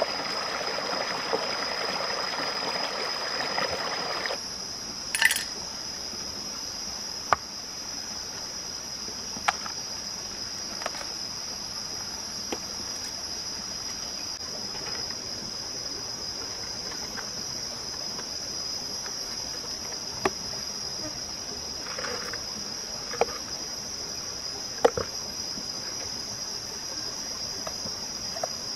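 A steady high-pitched drone of insects throughout, with the rush of a stream for the first four seconds or so, which cuts off abruptly. After that, scattered sharp clicks and taps, several seconds apart.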